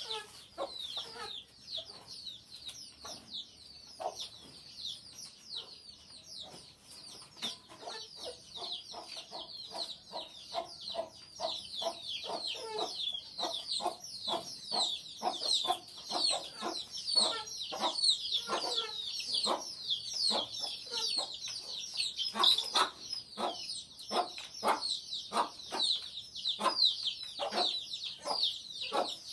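Chickens clucking, with a dense, unbroken chorus of many short, high, falling chirps over them that grows louder after the first several seconds.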